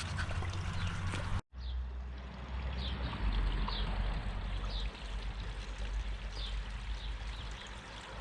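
Water pouring and splashing steadily into a garden pond. The sound cuts out for a moment about one and a half seconds in.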